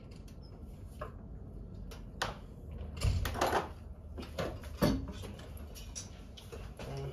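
Scattered knocks and clinks of hand tools and metal parts being handled on a Nissan RB engine's bare cylinder head during teardown for head removal, the loudest about three seconds in and again near five seconds.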